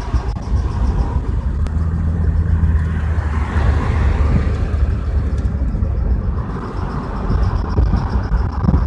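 Car moving slowly, with a steady low rumble of engine and road noise and a few faint clicks. The owner reports a new clicking from the front passenger-side wheel whose cause they don't know.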